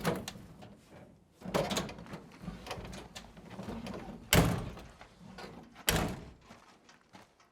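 Car doors being opened and slammed shut: several sharp knocks, the loudest about four and a half and six seconds in, with low rumbling between them.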